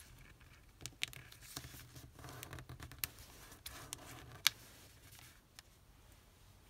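Origami paper being folded and creased by hand on a tabletop: quiet paper rustles and scrapes with a few sharp ticks, the loudest about four and a half seconds in.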